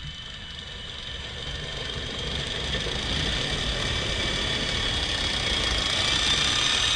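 Tank engine running with a steady low rumble and a high whine above it, slowly getting louder.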